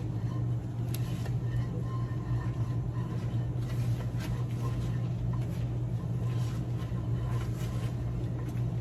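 A steady low hum, with faint rubbing and light knocks as a towel dries off a microwave turntable.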